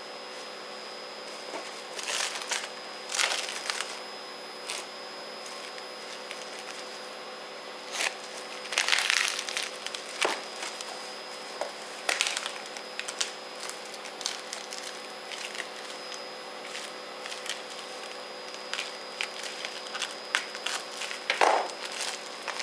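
A plastic mailer bag being cut and torn open by hand, crinkling and crackling in irregular bursts, the longest and loudest about 8 to 10 seconds in. A faint steady hum runs underneath.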